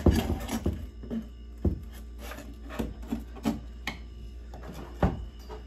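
Flat-screen TV being fitted onto a wall-mount bracket: scraping and rubbing against the mount and wall, with a few sharp knocks, the loudest about a second and a half in and again near the end.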